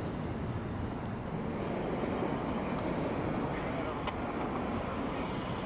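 Steady rushing noise of road traffic passing, with no crossing bell ringing.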